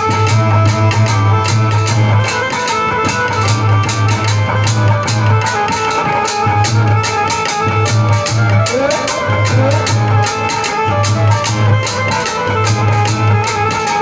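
Instrumental interlude of a live devotional bhajan, with no singing: percussion keeping a fast, even beat over a deep pulse, under a steady melodic instrument line.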